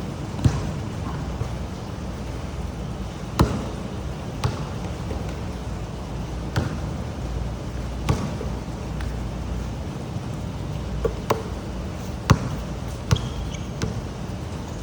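Steady heavy rain, with sharp knocks at irregular intervals, about ten of them.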